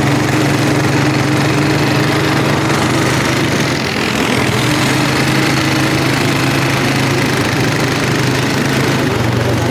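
ATV engine running at a steady, even pitch, with a slight dip in its note about four seconds in.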